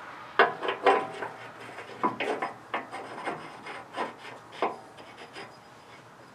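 A hydraulic loader cylinder being worked by hand into its mount on the loader arm: a run of irregular metal clunks and scrapes that dies away after about five seconds.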